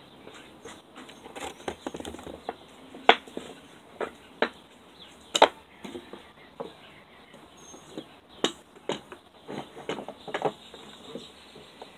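Wooden boards and a plastic corner clamp being handled on a wooden workbench: irregular knocks and clacks of wood set down and slid into place, the loudest about three, four and a half and five and a half seconds in, with a cluster more near the end.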